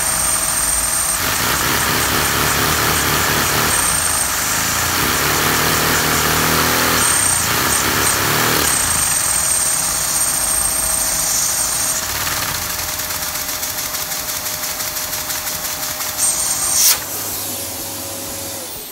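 LEGO two-cylinder vacuum engine running on a vacuum cleaner's suction: the cleaner's steady whine with a whistle, and the fast plastic clatter of the pistons and valves. About seventeen seconds in there is a sharp clack, then the sound dies down as the run fails.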